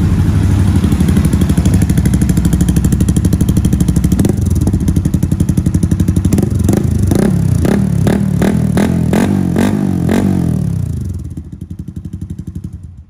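Honda motorcycle engine breathing through an aftermarket Coyote Start sport exhaust: it idles just after being started, is given about eight quick throttle blips, then is switched off and dies away near the end.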